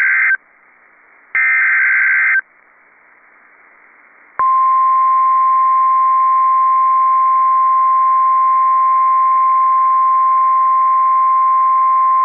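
NOAA Weather Radio emergency alert signal: the last of the SAME digital header bursts, short buzzy data screeches about a second apart, then after a two-second gap the steady 1050 Hz warning alarm tone. It signals that a new warning is about to be read.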